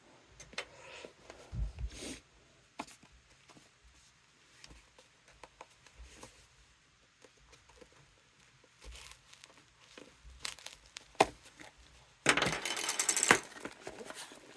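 A product box being opened by hand: scattered small clicks and rustles of cardboard and plastic packaging, then a loud tearing for about a second near the end.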